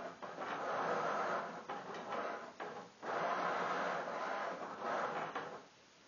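Milton Bradley chess robot's motorized piece-moving mechanism running as it carries pieces across the board: two whirring runs of about three seconds each, broken by a short stop about three seconds in.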